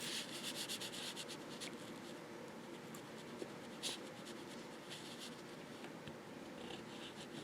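Visconti Homo Sapiens fountain pen with a fine 14K gold nib writing on paper: faint, quick scratching of pen strokes, busiest in the first second or two, with one louder stroke about four seconds in.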